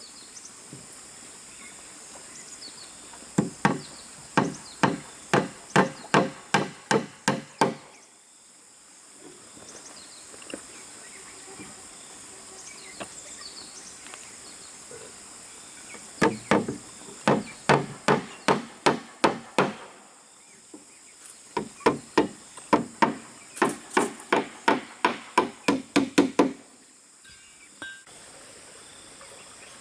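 Rapid runs of blows on wood, about two to three a second: a tool striking timber during construction work. A run of about ten blows comes a few seconds in, then after a pause two longer runs in the second half.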